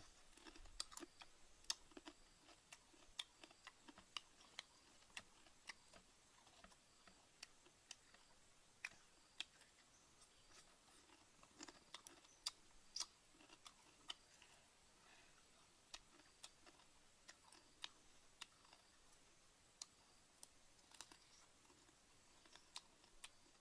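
Faint, crisp crunching clicks of someone chewing crunchy insects, sharp and irregular at about one or two a second.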